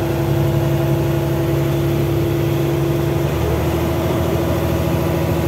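Fishing boat's engine running steadily, its note shifting about three seconds in.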